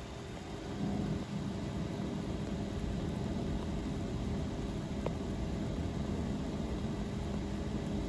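Suzuki Jimny's 1.5-litre four-cylinder petrol engine running at low revs as the SUV creeps along a rutted dirt trail: a steady low hum from about a second in, under a steady hiss.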